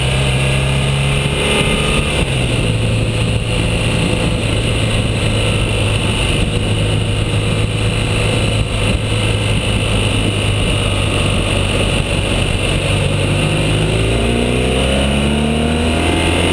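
BMW R1200GS motorcycle's flat-twin boxer engine running at steady revs on a climb, then rising in pitch near the end as it accelerates.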